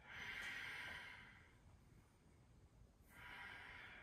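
Faint, audible breaths of a person into a close microphone: a long breath in the first second and a half, then another starting about three seconds in.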